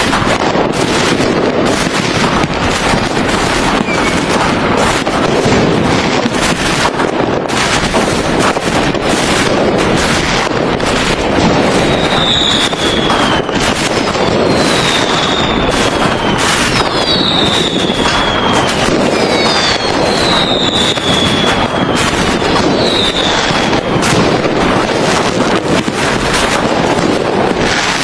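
Fireworks going off in a dense, continuous barrage of bangs and crackling. From about halfway through, several short whistles fall in pitch over it.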